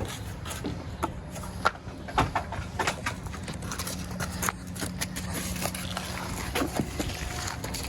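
Irregular clicks and knocks, as of hand work with tools or parts on an old lawnmower, over a low steady hum.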